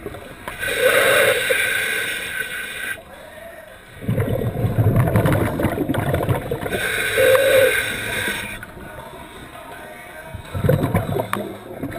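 Scuba diver breathing through a regulator underwater. Twice, a hissing inhalation through the demand valve is followed by a rumbling burble of exhaled bubbles. The first breath comes about half a second in and the second about seven seconds in.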